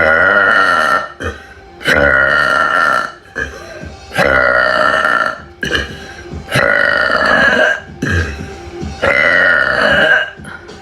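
A woman burping loudly, five long belches in a row, each about a second or more and spaced roughly two seconds apart.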